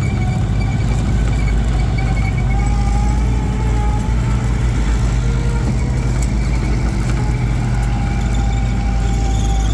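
Volkswagen Kübelwagen's air-cooled flat-four engine running steadily as the vehicle drives along, heard from aboard the open-topped vehicle.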